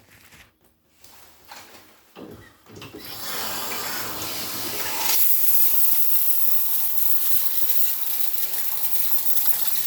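Shower water turned on: after a few faint knocks, water starts running about three seconds in and builds into a steady hissing spray from the shower head, which gets brighter about five seconds in. The water is on to test a freshly tape-sealed shower head connection for leaks.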